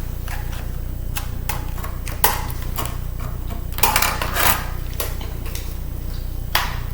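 Irregular clicks and short scrapes of a screwdriver working out small screws from the metal casing of a laptop CD drive, over a steady low hum.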